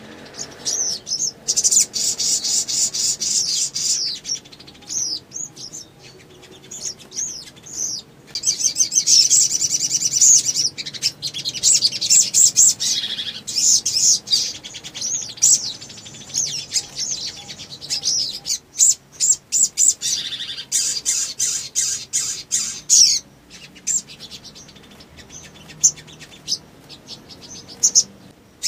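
A caged sogon (sogok ontong) sings hard in rapid, high chirping phrases. Some phrases run two to three seconds, with short pauses between. It is the excited 'gacor' song that keepers play as a lure to set other sogon singing.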